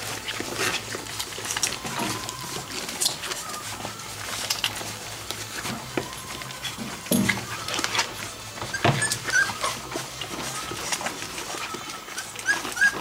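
Four-week-old golden retriever puppies giving short, high squeaks and whimpers, with scattered clicks and scuffling of paws moving about the pen. A low steady hum runs underneath.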